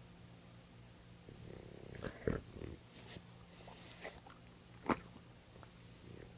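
A sleeping pet snoring softly as a steady low drone, broken in the middle by several sudden louder sounds and a short hiss, the sharpest just before five seconds in.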